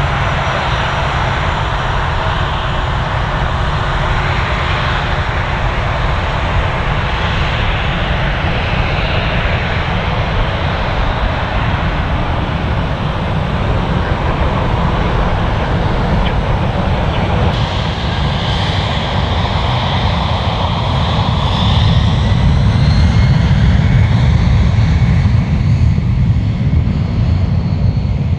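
Boeing 757 freighter's jet engines running as the aircraft taxis, a steady rumble with a faint whine over it. The sound grows louder in the last few seconds.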